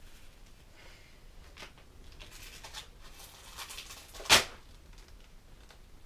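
A sheet of grip tape rustling and crinkling as it is handled and laid onto a skateboard deck, with one short, sharp, louder sound a little over four seconds in.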